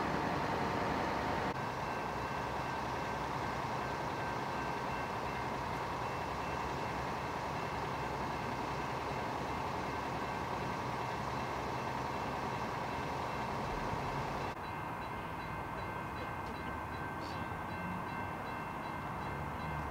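Steady rumble of idling diesel engines around a stopped freight train, with faint steady high whining tones. In the last five seconds a faint, rapid, regular ticking is added: the bell of the activated railroad crossing signal.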